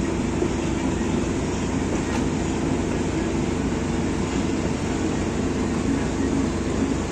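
Boat engine running, a steady low drone that neither rises nor falls.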